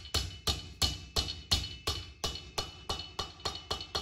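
Hammer tapping the dovetail joints of a wooden drawer box together: a steady run of quick, even blows, roughly four a second, each with a slight ring.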